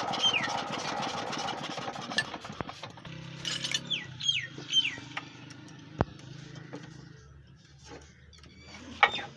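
An engine running with a fast, even beat that stops about two and a half seconds in. A faint low steady hum and a few sharp clicks follow, and a bird calls with a short falling whistle several times.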